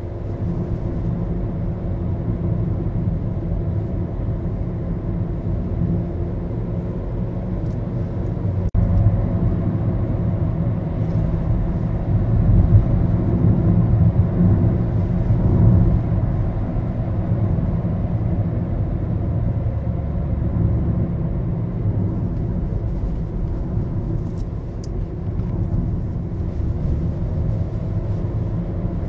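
Inside the cabin of a Maruti Suzuki Baleno on the move: a steady low rumble of engine and road noise, swelling a little about halfway through.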